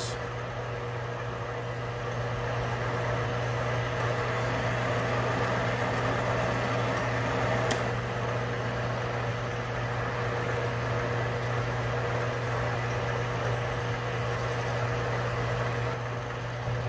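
Metal lathe running steadily under power while taking a turning pass on a small workpiece: a steady motor and drive hum with a faint even cutting hiss, and one light click about eight seconds in.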